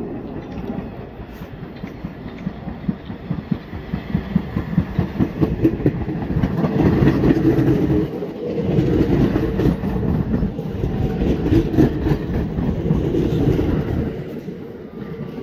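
New York City Subway train arriving and running close past along the platform, its wheels clacking on the rails over a heavy rumble. The sound builds to its loudest about seven seconds in and eases off near the end.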